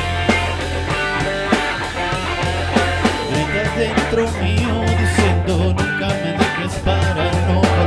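Rock music with guitar, bass and drums keeping a steady beat, with no singing.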